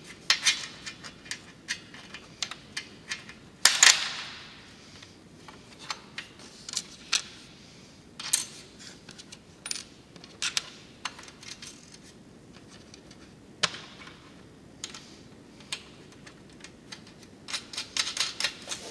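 Small metal fasteners (nuts, bolts, washers and lock washers) clicking and clinking as they are picked through and fitted by hand, with a louder clatter about four seconds in and a busier run of clicks near the end.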